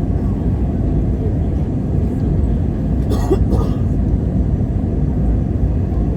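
Airliner cabin noise during landing: a steady, loud deep rumble from inside the cabin, with a brief sharper rattle about three seconds in.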